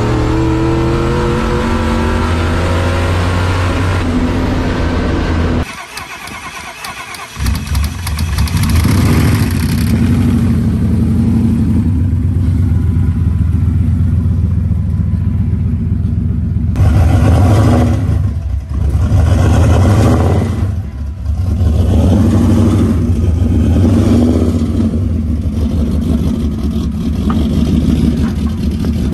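Turbocharged Ford Coyote V8 in a stripped Fox-body Mustang accelerating hard, heard from inside the cabin, its pitch rising over the first few seconds. After a short quieter break it runs loud again, with a few brief drops in revs later on.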